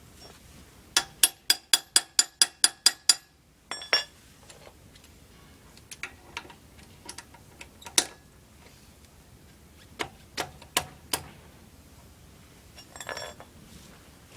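Metal hand-tool clicks and clinks during a tyre change. First comes a run of about ten evenly spaced ringing clicks, about five a second, then scattered single clinks and a short metallic rattle near the end.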